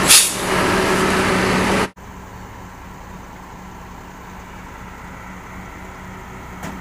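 Heavy truck running, with a short, sharp hiss of air just after the start. About two seconds in the sound cuts to a quieter stretch of steady, low engine hum.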